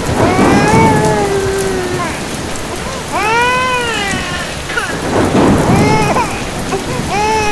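Heavy rain, its noise swelling loudly near the start and again about five seconds in. Over it, a high wavering cry with arching pitch comes several times.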